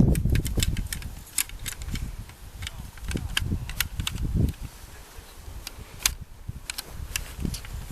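Metal parts of an SA80 (L85A2) rifle clicking and clattering as it is reassembled and the recoil spring is fitted: a string of sharp clicks, with a few dull handling knocks around the middle.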